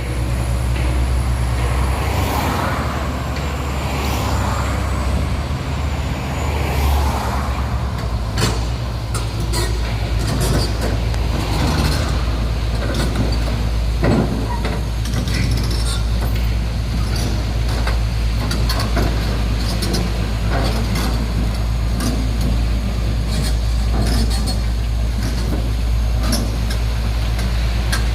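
Large diesel engine of heavy equipment running steadily with a deep drone, with scattered metallic clanks and knocks from about eight seconds in.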